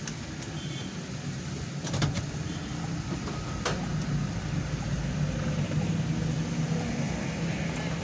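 Road traffic passing a stopped car, heard from inside: motorcycles, a truck and minibuses going by over a steady low engine hum, with a couple of sharp clicks.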